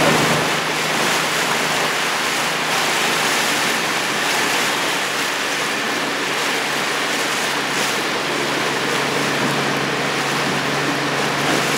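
Steady rush of water and wind on the microphone from a boat under way, with a low steady hum underneath.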